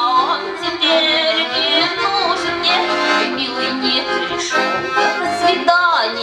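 Accordion playing a Russian folk-style song, with a woman singing over it.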